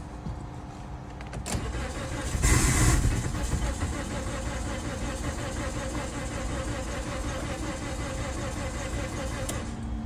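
Starter cranking a Toyota Corolla engine with its fuel injectors unplugged, turning it over steadily without firing, to clear gasoline from flooded cylinders. The engine has low compression in all four cylinders from a failed head gasket. The cranking is louder about two and a half seconds in and stops near the end.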